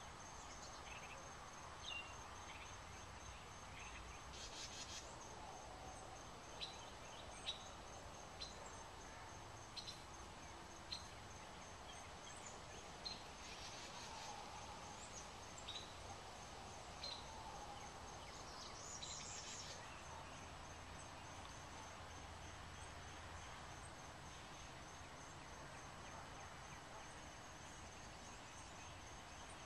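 Faint outdoor garden ambience with scattered short, high bird chirps and a few brief trills over a steady background hiss.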